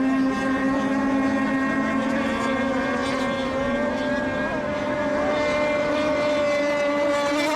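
Racing radio-controlled boat engines running flat out during a heat: a steady engine tone with many overtones that wavers slightly in pitch.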